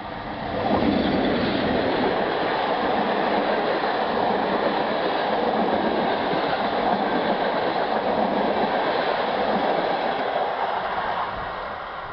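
ET22 electric locomotive and its passenger coaches passing close by, a steady rush of wheels running on the rails that comes up sharply about a second in and fades away near the end as the train recedes.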